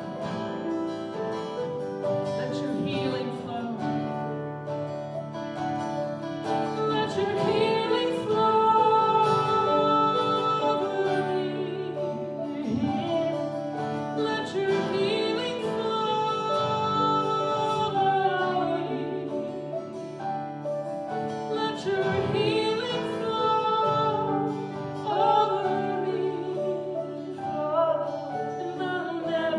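Worship song: a woman singing over guitar and a sustained backing accompaniment.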